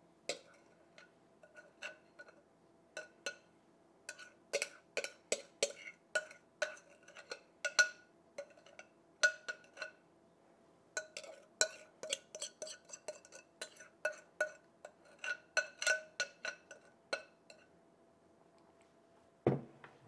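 A metal spoon clinking and scraping against a glass mixing bowl, each hit ringing briefly, as the last of a thick dishwasher-tablet paste is scraped out into an ice cube tray. A louder, duller knock comes near the end.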